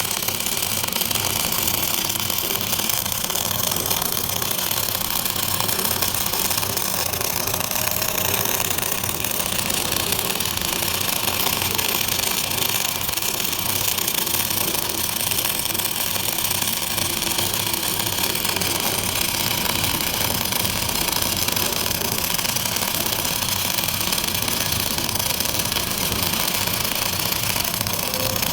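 Electric welding arc crackling steadily and without a break, as a bead is laid on hardened steel.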